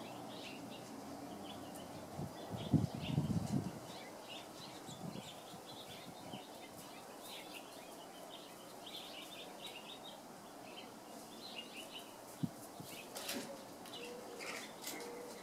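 Small birds chirping in short, scattered high calls throughout, with a brief low rumble about three seconds in and a single sharp click near the end.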